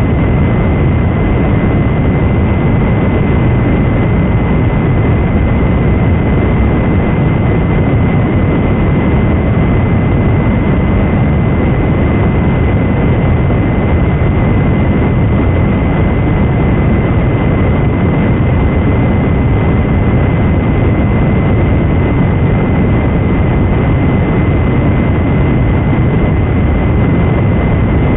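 Loud, steady static-like noise, heaviest in the low end, with a thin steady high-pitched tone running through it: the dead-air noise of a mock Emergency Action Notification broadcast.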